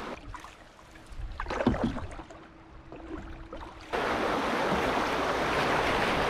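Canoe on a river, its paddle splashing and knocking in the water, with a few splashes about a second and a half in. About four seconds in, the sound switches abruptly to a steady, louder rush of noise.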